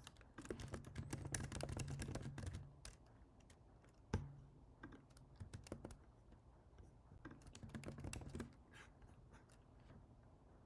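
Computer keyboard typing, faint and in irregular runs of keystrokes, with a sharper single click about four seconds in.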